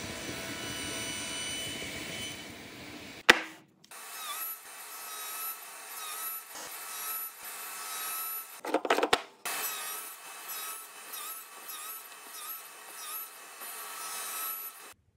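Power saw running and cutting into wooden blocks, with a sharp knock about three seconds in and a louder burst of cutting around nine seconds in.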